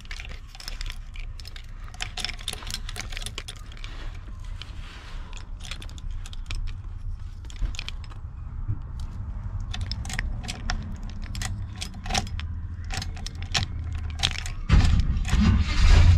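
A bunch of keys on a ring jangling and clicking as they are worked in a pickup truck's ignition on the steering column. A little before the end the truck's engine starts and runs with a loud low rumble.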